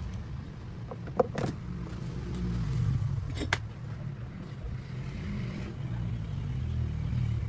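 Steady low rumble, with two short sharp clicks about a second in and about three and a half seconds in.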